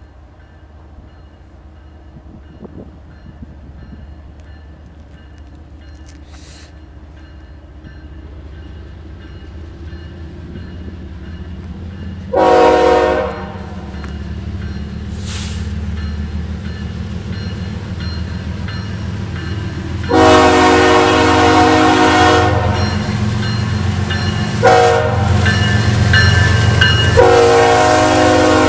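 Diesel freight locomotives approaching, their engine rumble growing steadily louder. The lead locomotive's multi-tone air horn gives a short blast about halfway through, then a long blast, another short one, and a long one near the end.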